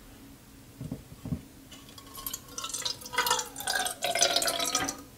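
Water-based algae growth medium poured from a wide-mouth glass mason jar into the narrow neck of a small bottle. Two light knocks come about a second in, then an uneven trickle and splash of pouring for about three seconds, without a spill.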